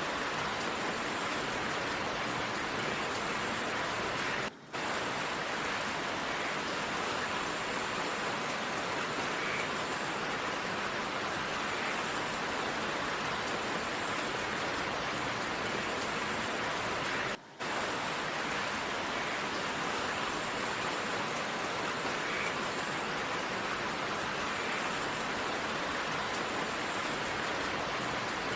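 Heavy rain falling as a steady downpour. The sound cuts out briefly twice, about four and a half seconds in and again about seventeen seconds in.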